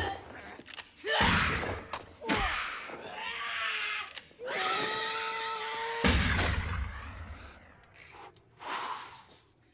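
Film sound effects: several heavy thuds and crashes with shrieking, wailing cries between them. One cry is held for over a second. It all dies away toward the end.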